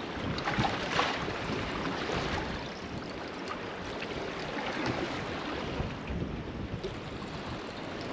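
Wind buffeting the microphone and water slapping against the hull of a drifting boat, with a few short splashes or knocks.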